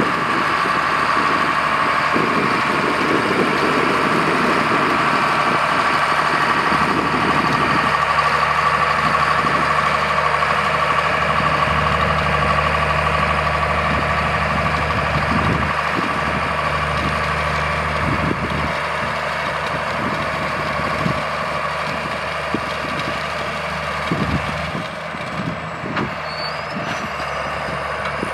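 John Deere tractor's six-cylinder diesel engine running steadily under load while pulling a corn planter, with a steady high whine over the engine note. The level drops a little in the last few seconds as the tractor moves off.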